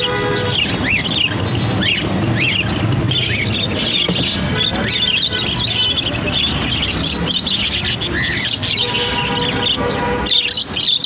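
Parrots chirping and calling, many short overlapping chirps without pause, over a steady low background rumble.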